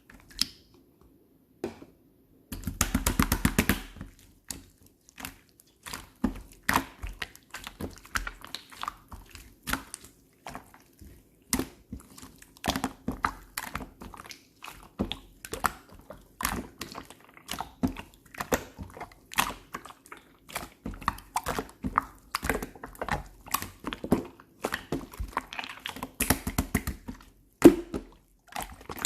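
Soft pongdang slime being squished and pressed by hand, making a steady run of wet clicks and pops, with a fast crackle of pops a few seconds in.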